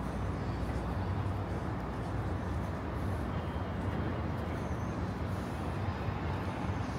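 Steady city street ambience: an even low rumble of road traffic with no single event standing out.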